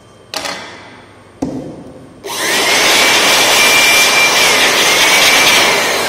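Handheld electric air blower switched on about two seconds in: its motor whines up to speed and runs with a loud rushing hiss for about four seconds, blowing dust out of smoke detector parts. Two sharp knocks come before it.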